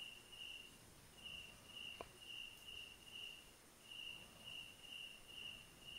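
Faint cricket chirping: short high notes at one steady pitch, repeated about two to three times a second with brief pauses. A single faint click about two seconds in.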